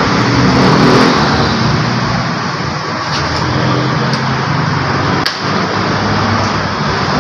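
Steady engine or machine running noise with a low hum, and a few sharp clicks in the middle.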